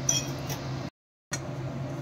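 Steady low room hum with a few faint clicks near the start, broken by a short stretch of dead silence about a second in.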